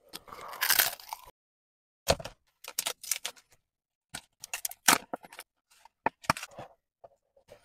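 Kraft paperboard takeout boxes being handled and their folded flaps opened: a string of crinkles, scrapes and taps with short pauses between.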